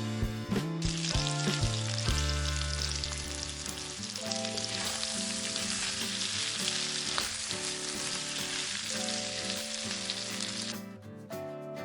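Food frying in oil in a miniature pan, a steady sizzle that starts about a second in and cuts off near the end, over background music.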